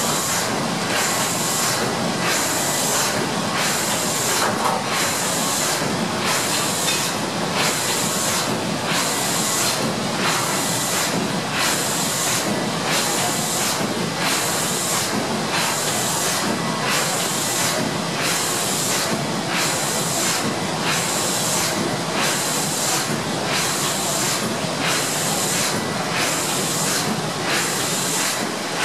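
1926 Maffei two-cylinder steam engine of a paddle steamer running under way: a steady hiss of steam with mechanical clatter, pulsing in an even rhythm roughly once a second.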